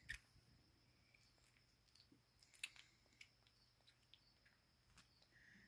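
Near silence with a few faint, short wet clicks and smacks from newborn Yorkshire Terrier puppies suckling at their mother's teats.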